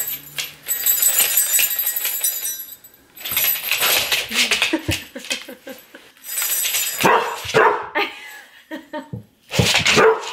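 Puppy whining and giving short barks in a few bursts, worked up by a wrapped present held out in front of it.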